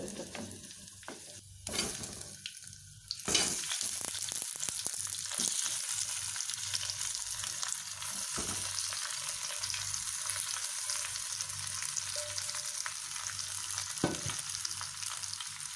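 Hot oil sizzling in a clay pot. About three seconds in, the sizzling jumps louder and stays steady as masala-coated stuffed brinjals and potato pieces go into the oil, with a few light knocks.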